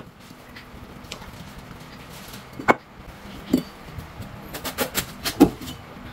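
Steel cleaver chopping through watermelon onto a wooden chopping board. A couple of separate knocks come first, then a quick run of five or six strokes near the end, the last the loudest.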